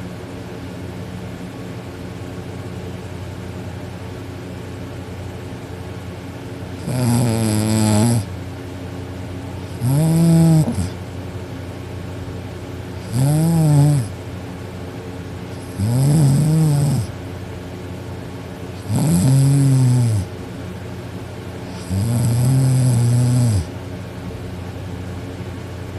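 A teenage girl snoring loudly in her sleep: six long snores about every three seconds, starting about seven seconds in, each bending up and down in pitch, over a steady background hum.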